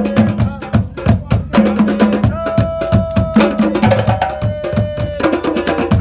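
African hand drums played in a fast, dense rhythm of sharp strokes, with a long held note sounding over them twice in the middle.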